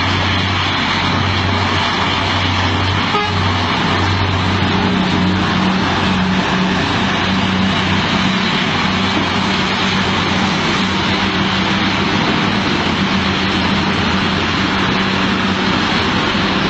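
Heavy diesel engine of a large mining haul truck running steadily, a loud even drone with a low hum.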